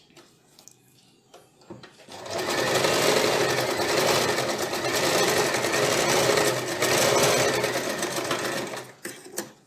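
A Wonder Stitch electric sewing machine stitches a blouse side seam. It starts about two seconds in, runs steadily for about six and a half seconds, then stops abruptly, with a few light clicks before and after.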